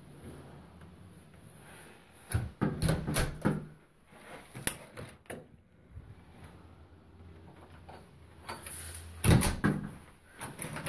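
Front door being handled: scattered knocks and rattles, a cluster about two to three and a half seconds in and the loudest about nine seconds in.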